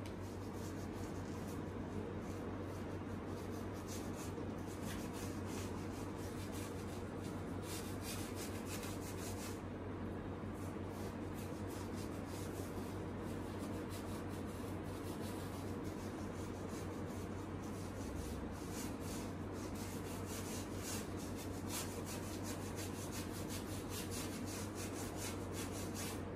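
Paintbrush scrubbing paint onto a stretched canvas: short, irregular scratchy brush strokes coming in runs, over a steady low hum.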